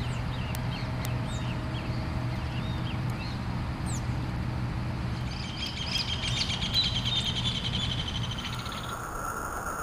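Small birds chirping in short calls, then a fast twittering trill from about five seconds in until nearly nine seconds, over a steady rushing noise.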